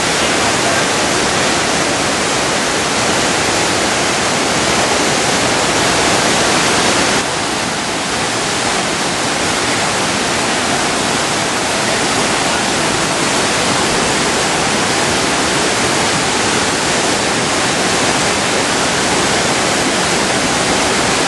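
Whitewater rapids of a fast alpine river rushing steadily and loudly, with a slight drop in level about seven seconds in.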